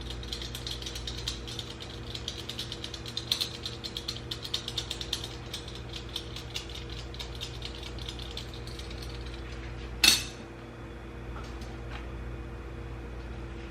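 Vegetable peeler shaving a block of cheese in quick repeated scraping strokes, used in place of a cheese grater. The strokes stop about ten seconds in with one sharp knock, over a steady low hum.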